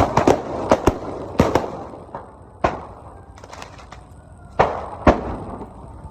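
Fireworks going off in a series of sharp bangs and pops at irregular intervals, thickest in the first two seconds, then a few more spaced out.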